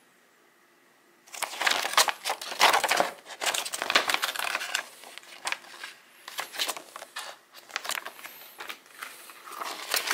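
A paper instruction sheet rustling and crinkling as it is handled, turned and folded, starting about a second in after near silence.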